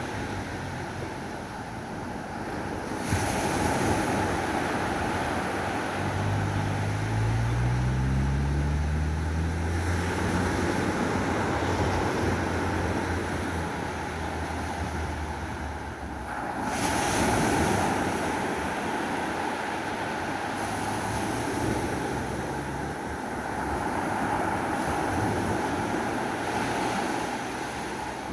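Ocean surf washing onto a beach, with wind buffeting the microphone; the waves surge louder about 3 s in and again around 17 s. From about 6 s a low engine hum rises in pitch, then holds steady until about 16 s.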